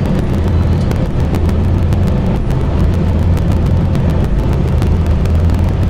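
Heavy truck's engine and road noise heard from inside the cab while driving: a steady low drone.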